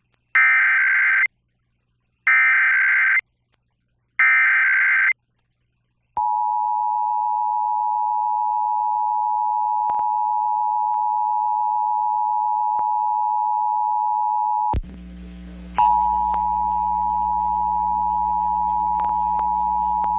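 Emergency Alert System test: three short bursts of warbling digital header tones, then the steady two-tone attention signal. About fifteen seconds in the tone drops out for about a second and comes back with a low hum underneath.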